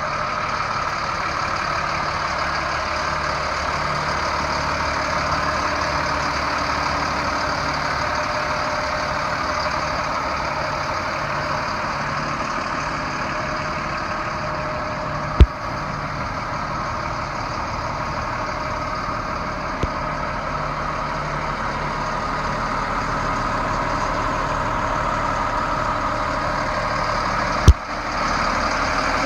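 M1078 LMTV cargo truck's diesel engine idling steadily, with two sharp clicks, one about halfway through and one near the end.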